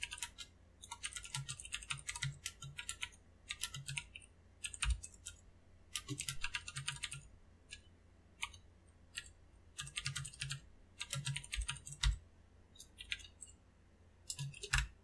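Computer keyboard typing: quick runs of keystrokes in bursts with short pauses between them, with a few heavier thuds among the keys.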